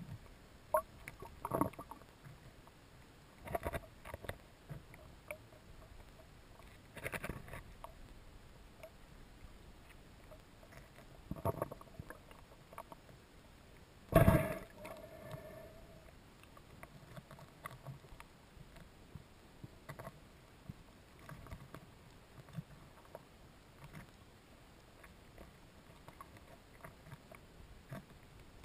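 Underwater camera housing knocking and being jostled as it is moved over an oyster bed. Several irregular knocks and scrapes rise out of a low water hiss, the loudest about halfway through.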